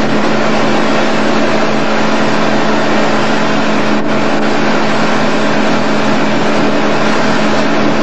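Motorboat engine running steadily under way, a constant drone with an even pitch over a broad hiss.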